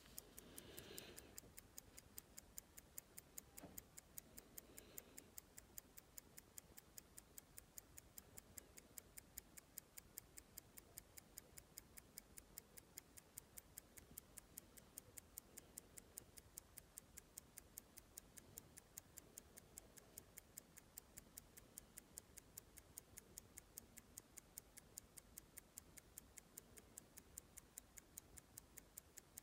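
Trans Pacific 21-jewel pocket watch ticking steadily at about five ticks a second, its restored movement running again.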